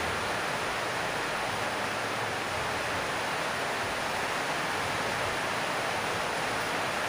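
Steady, even rushing hiss that does not change or break.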